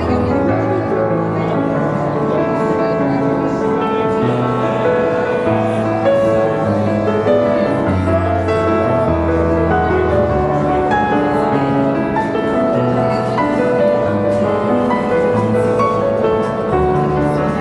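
Background music: sustained chords over a low bass line at a steady level.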